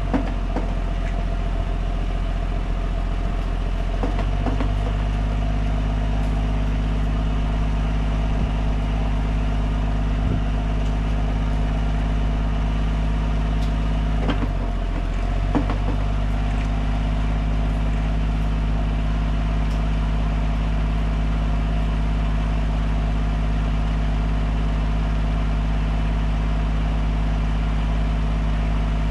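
An engine idling steadily, its note shifting slightly about four seconds in and again around fifteen seconds, with a few light clicks over it.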